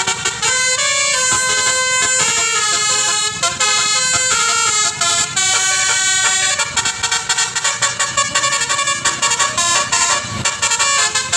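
A bus's basuri telolet horn playing a fast melody: several horn tones stepping rapidly from note to note without a break.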